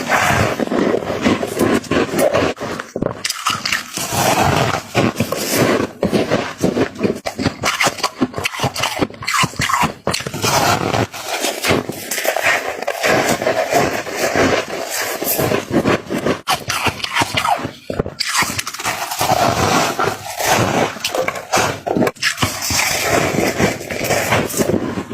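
Close-up crunching and chewing of freezer frost: a dense run of irregular crisp crunches and crackles that goes on without a break.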